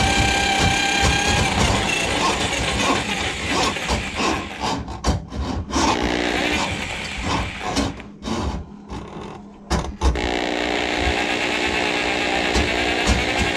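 Handheld power drum drain auger spinning its cable down a kitchen sink drain line clogged with grease. A steady motor whine gives way a couple of seconds in to irregular knocking and rattling of the cable, then the motor starts up again abruptly about ten seconds in.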